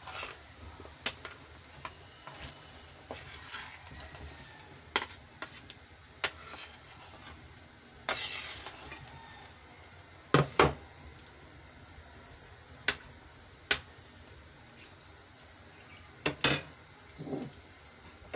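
Chayote slices tipped from a bowl into a stainless steel pot of boiling chicken broth, with the broth bubbling throughout. About eight seconds in, the pieces slide and splash in for about a second. Scattered clinks and knocks of the bowl and utensils against the pot run through it, the loudest a sharp double knock about halfway through and another pair near the end.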